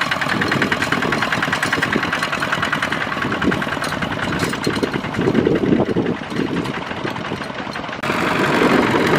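Single-cylinder diesel engine of a two-wheel walking tractor (power tiller) running with a fast, even chugging as it hauls a heavily loaded trailer. About eight seconds in the sound cuts to another tiller's engine, louder and closer.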